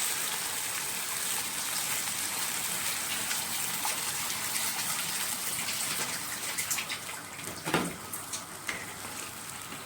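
Water poured into a hot cooking pot of rice, a steady rushing hiss that gives way after about six seconds to scattered crackling, with a single sharp knock near the end.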